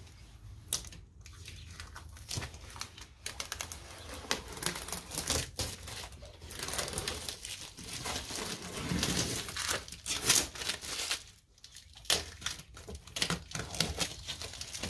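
Clear protective tape strips being peeled off the paintwork around a car headlight and crumpled into a ball in the hand: irregular crinkling and tearing crackles, with a short pause about eleven seconds in.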